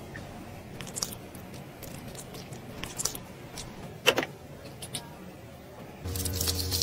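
Light clicks, taps and scrapes of skincare tools being handled: a flat brush working clear gel in a glass bowl, then a handheld facial beauty device picked up. Near the end a steady low electric hum starts along with a wet crackle as gel lands on the device's head.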